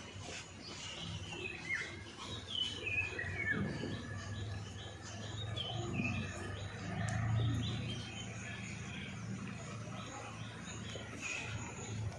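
Young kittens mewing: many short, high-pitched calls that fall in pitch, coming in quick series through the first two-thirds and again near the end.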